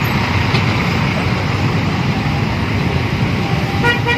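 Scania-engined coach running slowly in heavy traffic: a steady low engine rumble with road noise. Near the end a vehicle horn gives two short toots in quick succession.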